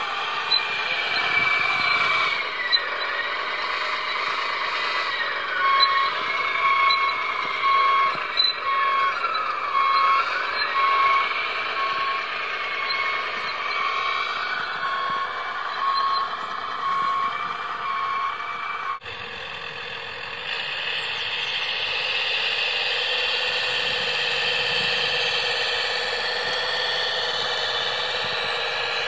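RC model O&K L55 wheel loader working snow: its electric drive and hydraulics whine steadily, the pitch dipping and recovering several times under load, while a reversing beeper sounds about once a second. After a sudden cut about two-thirds of the way through, a steadier mechanical hum takes over.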